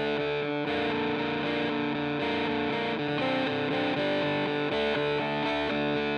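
Background music led by a distorted electric guitar.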